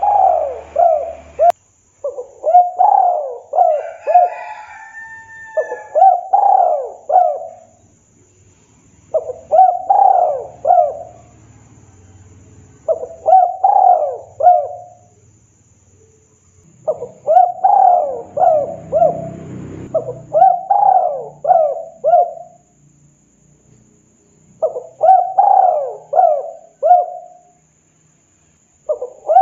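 Spotted dove (tekukur) cooing. Bouts of about four quick coos, each rising and falling in pitch, repeat every few seconds with short pauses between.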